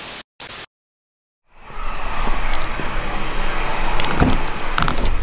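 A brief burst of TV-static hiss cuts out into a second of silence. Outdoor traffic noise then fades in, and keys jangle and click against a van's door handle near the end.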